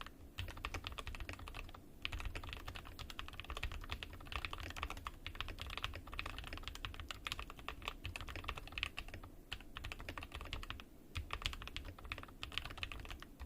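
Fast continuous typing on a GMMK 2 mechanical keyboard with hand-lubed AKKO Silver linear switches, switch pads and foam in the case, a dense stream of key clicks and thocks with a few short pauses. The damped, muted keystrokes are the "creamy and thoccy" sound of the switch-pad mod.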